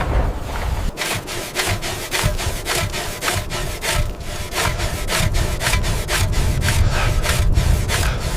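Hand saw strokes, a steady rasping rhythm of about three strokes a second starting about a second in: an ice saw cutting blocks from frozen river ice.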